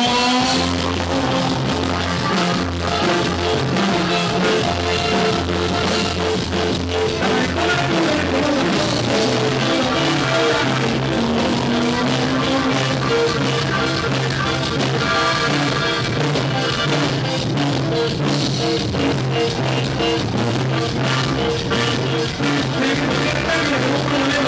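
Live norteño-style band music: button accordion playing a melody over strummed guitar with a steady beat, and a male singer's voice through a microphone.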